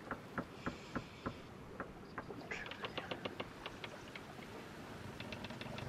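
Faint, irregular small clicks and light scratches of a paintbrush dry-brushing a laser-cut toy gun part held in the hands, with a brief soft scratchy brush stroke about a second in and a quick run of ticks about halfway through.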